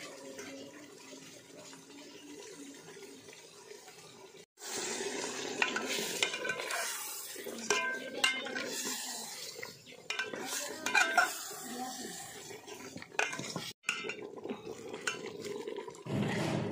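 Metal ladle stirring mutton in an aluminium cooking pot, scraping and clinking against the pot's sides while the meat sizzles. The stirring is loudest from about four and a half seconds in.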